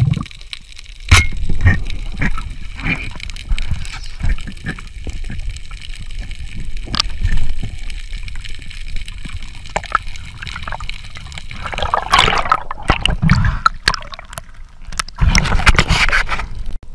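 Water moving and gurgling around an underwater camera, with scattered sharp clicks and knocks. There are two louder rushing, gurgling spells near the end.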